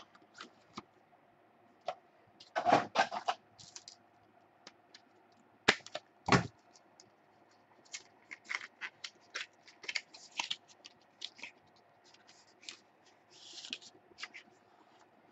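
A 2014 Spectra football card box being opened by hand: packaging crackling and rustling with scattered clicks, a burst of crinkling about three seconds in, and two sharp knocks near six seconds in.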